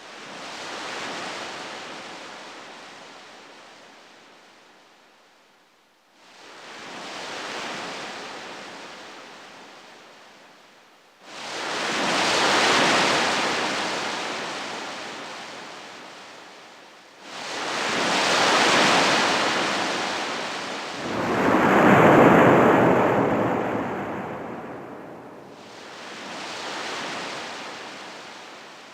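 Repeated rushing noise swells, each starting suddenly and fading over several seconds, about six seconds apart. A deeper, louder swell comes about 21 seconds in.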